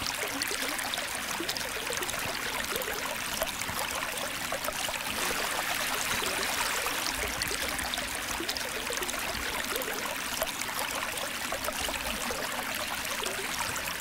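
Shallow stream running over a rocky bed: a steady rush of water.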